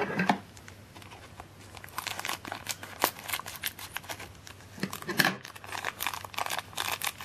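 Clear plastic bag crinkling and crackling as it is handled and cut open with scissors, the crackles coming thicker and louder in the second half.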